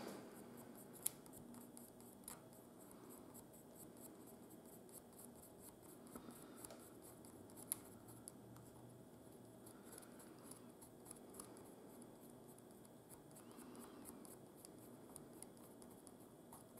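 Faint, rapid scratching of a pencil's graphite lead rubbed back and forth over a small plywood crank part, coating it as a dry lubricant. Two sharper clicks stand out, about a second in and near the middle.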